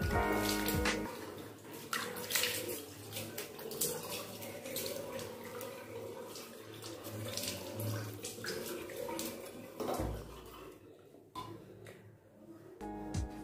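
Tap water running into a basin and splashing as a face is rinsed, stopping about ten seconds in. Background guitar music plays briefly at the start and comes back near the end.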